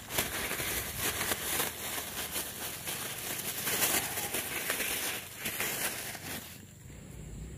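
Clear plastic bag crinkling and rustling as it is handled, opened, and twisted shut around a freshly caught fish; the crinkling stops about a second before the end.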